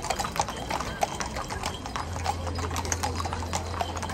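Hooves of several walking horses clip-clopping on asphalt, many overlapping, irregular strikes.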